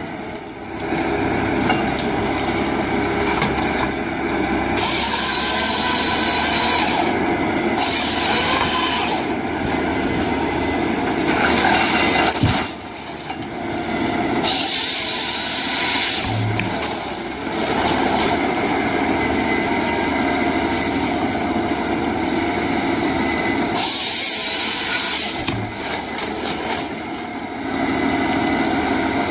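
Heavy machinery engines running under load, with loud hissing and clattering that come and go. The sound changes abruptly several times, as separate clips cut into one another.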